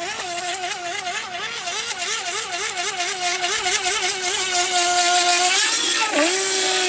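Radio-controlled model boat's motor running with a steady whine. Its pitch bobs up and down about three times a second as the boat jumps over waves. Near the end the pitch climbs, then drops sharply and recovers.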